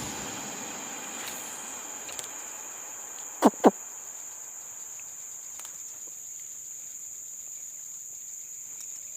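Insects trilling steadily at a high pitch. About three and a half seconds in, two short, loud calls sweep down in pitch, a fraction of a second apart.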